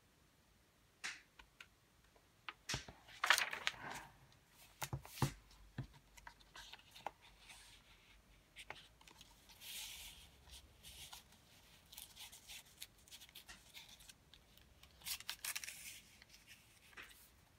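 Paper being handled: journal pages turning and paper doilies sliding in and out of a page pocket, giving light rustles in short bursts and scattered soft taps.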